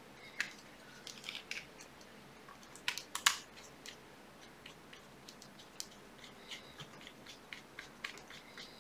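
Torx screwdriver turning a screw into the body of a SIKA P40.2 pneumatic test pump: faint scattered clicks and scrapes of metal, with a couple of sharper clicks about three seconds in and quicker light ticks toward the end.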